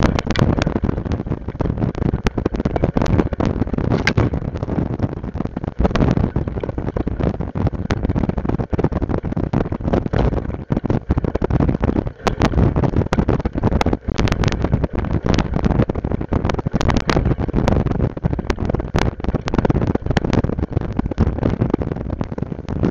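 Rough, steady rumble of a vehicle rolling over a bumpy dirt trail, with wind on the microphone and many small rattles and knocks throughout.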